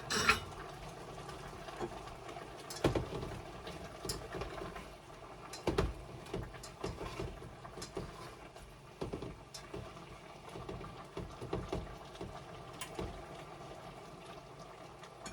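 Soup simmering in a pot with a steady bubbling patter, and a few scattered light knocks and clinks.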